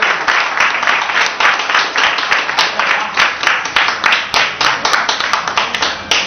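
Audience applauding: many people clapping fast and steadily, stopping at the very end.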